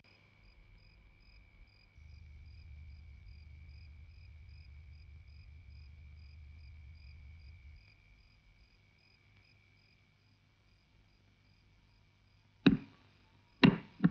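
Steady high chirring of crickets, the night-time background of the scene. A low rumble runs from about two seconds in to about eight seconds, and three sudden sharp knocks come near the end, the loudest sounds here.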